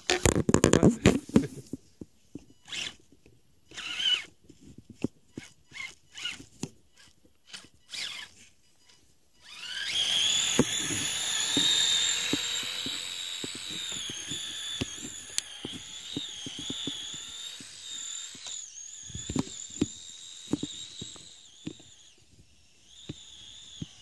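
Kyosho Blizzard radio-controlled snowcat driving through snow: a steady, high-pitched whine from its electric drive that wavers in pitch with the throttle, running for about twelve seconds from around ten seconds in, over small clicks and crunches from its tracks. Before it starts, scattered knocks and crunches in snow, loudest at the very start.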